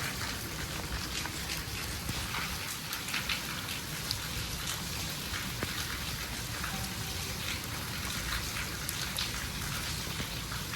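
Heavy rain falling steadily, with many individual drops pattering and splashing on surfaces.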